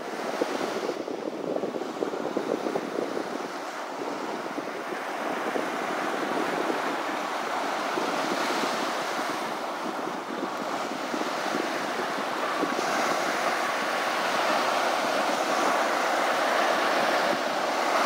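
Ocean surf washing up on a beach: a steady rush of breaking waves that swells and eases.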